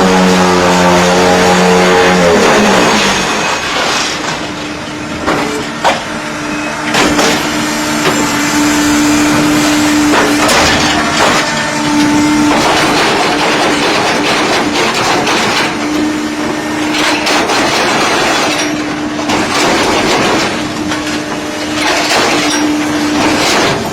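Concrete block (batako) making machine running: a loud, dense mechanical rattle with a steady hum that drops away and returns several times. A low motor tone falls in pitch in the first few seconds, and a few sharp knocks come through, around four and six seconds in.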